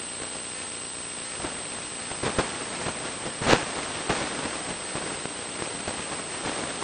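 Steady hiss of recording static with a thin high whine, broken by a few sharp crackles, the loudest about three and a half seconds in.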